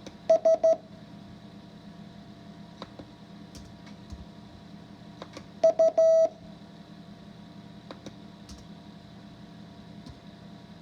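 Morse code practice tone, a steady pitch of about 650 Hz, keying one character just after the start and another about six seconds in, each a quick run of short and long beeps with long silent gaps between characters. The characters are drawn from the letters U, S, R and Q.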